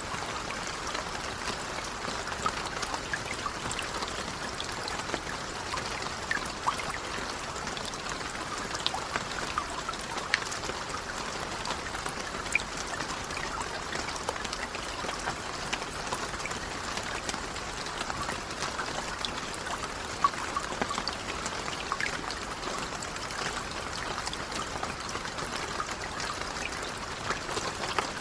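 Steady rain, with many small sharp drips and pops scattered through it.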